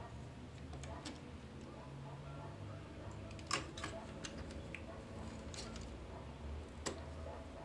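Small, sharp plastic clicks and taps from the parts and joints of a Takara Masterpiece MP-25 Tracks transforming figure being handled and repositioned, about half a dozen scattered hits over a low steady hum.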